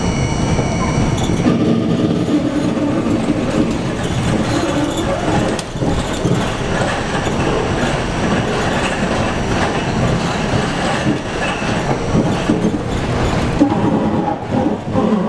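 R42 subway train running on an elevated steel line, heard from inside the front car: steady rumble and clatter of wheels over the rails. A high whine fades out about a second and a half in, and the train is running into a station near the end.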